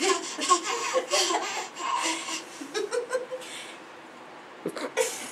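Laughter in short bursts over the first few seconds, dying down, then a couple of sharp knocks near the end.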